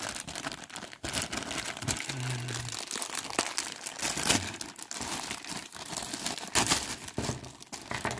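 Plastic bags crinkling and crackling as they are handled and opened, with many sharp crackles throughout.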